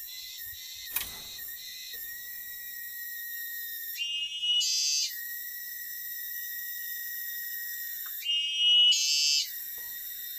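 Steady high-pitched drone of a forest insect chorus. Two louder shrill calls, each about a second long, come about four seconds apart.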